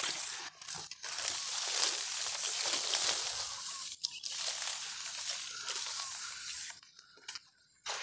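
Leaves and branches rustling and crackling close to the microphone as a climber moves in a tree, with a short break about four seconds in and a near-silent gap near the end.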